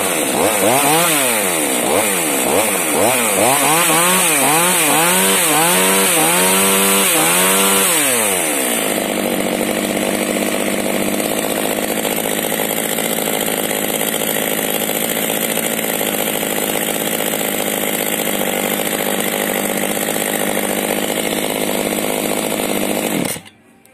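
Oleo-Mac 925 two-stroke chainsaw with its throttle blipped about a dozen times, revving up and falling back in quickening repeats. After about eight seconds it settles to a steady idle, then is switched off and stops suddenly near the end.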